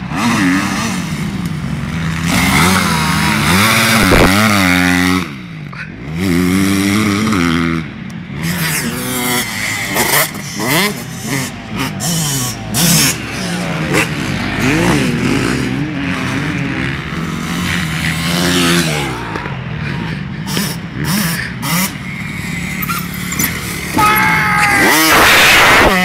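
Several small dirt bike engines revving up and down as the bikes ride, their pitch rising and falling with each throttle change. Near the end one bike passes close and is loudest.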